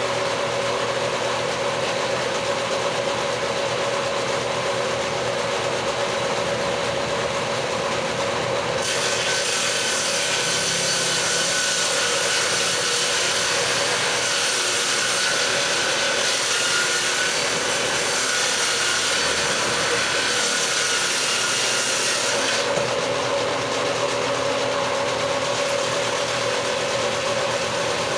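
A power tool's motor runs steadily, and from about nine seconds in to about twenty-three seconds it cuts into the wood of a door jamb, adding a harsh hiss over the hum.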